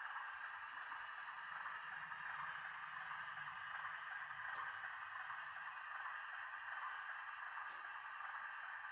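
Model Class 03 diesel shunter running slowly with its LokSound V4 sound decoder on: a faint, steady diesel engine sound from the locomotive's small speaker, with the noise of its motor, which the owner finds noisy with this decoder.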